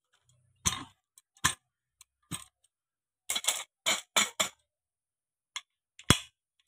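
Metal tractor clutch parts (pressure plate, cover and release fingers) being handled and set against each other: about ten irregular sharp clinks and knocks.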